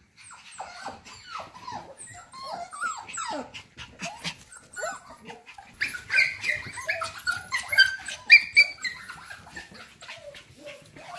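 Cockapoo puppies whining and yipping in many short high calls that fall in pitch. From about six seconds in the yips get sharper and louder. Scattered clicks run underneath.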